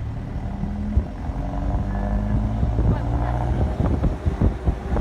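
A motor vehicle running steadily with a low hum, with wind buffeting the microphone and scattered knocks in the second half.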